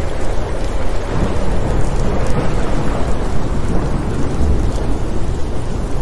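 Steady rain with a low, continuous rumble of thunder underneath; no sharp thunderclap.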